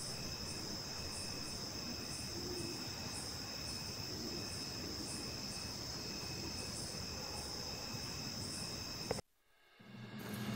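Crickets calling steadily, a continuous high trill with a fainter chirp pulsing about twice a second above it. About nine seconds in the sound cuts off abruptly, and music begins just before the end.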